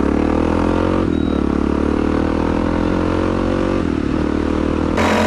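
Suzuki DR650's single-cylinder four-stroke engine running through a Screaming Demon aftermarket exhaust, accelerating under load. The pitch climbs steadily and drops back about a second in and again near four seconds, as at gear changes.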